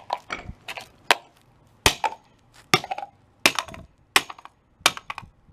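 Small plastic Bluetooth speaker being smashed against a concrete floor: a series of sharp, hard knocks, about one every two-thirds of a second, as the casing is broken open to get at the driver.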